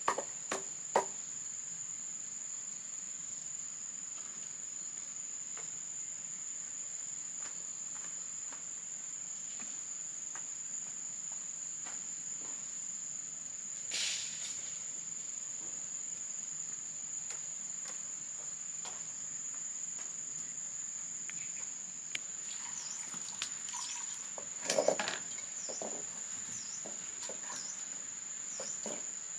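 Steady high-pitched insect trilling throughout. A few sharp knocks sound in the first second and a short burst of noise comes about halfway. Near the end there are short falling chirps and one brief louder noise.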